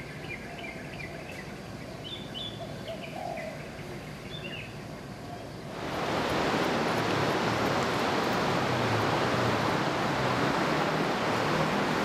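Small birds chirping in short calls over a quiet background. About halfway through, this cuts suddenly to the steady wash of ocean surf breaking on a beach.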